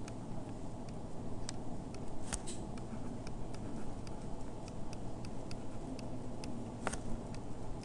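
Light ticks and taps of a stylus on a tablet screen as numbers are handwritten, a few a second and somewhat irregular, over a low steady room hum.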